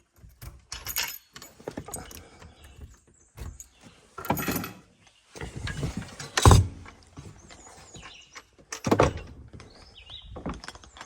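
A door and its hardware being worked: a series of clicks, rattles and knocks, with the loudest thud about two-thirds of the way through, like a door being shut.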